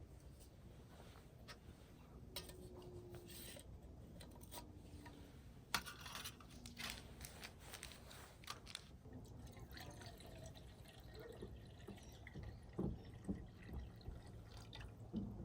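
Faint kitchen sounds while hot chocolate is made: scattered clinks and taps of cups and utensils, with a little liquid being poured and dripping.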